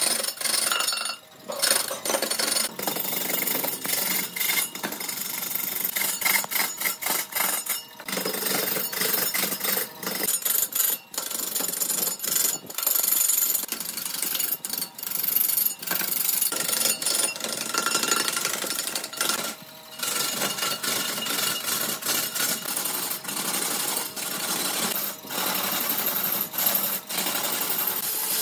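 Turning tool cutting into wood spinning on a lathe: a harsh, rattling scrape, broken by several brief gaps.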